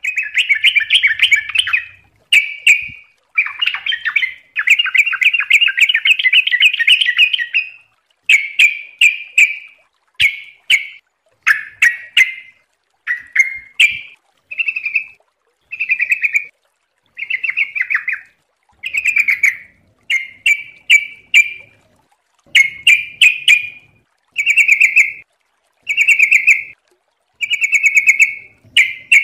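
Yellow-vented bulbul (trucukan) singing: short warbled phrases one after another with brief gaps, the longest run lasting a few seconds near the start.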